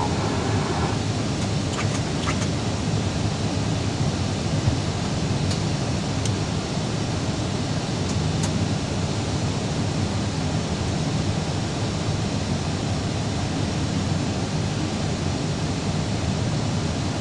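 Steady cabin noise inside an Airbus airliner in flight on approach: an even rush of engine and airflow noise, heaviest in the low range, with a few faint ticks.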